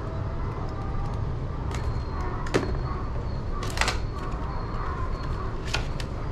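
A small retail package being handled and opened by hand: a handful of separate sharp clicks and snaps, the loudest about two and a half and four seconds in. Under them runs a steady low outdoor rumble.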